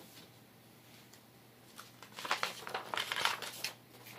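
Paper, likely sheet music, rustling and crinkling as it is handled, in a run of short irregular rustles starting about two seconds in, after a quiet stretch.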